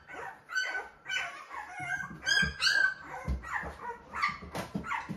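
One-week-old puppies crying: a run of short, high-pitched squeals and whines, several a second.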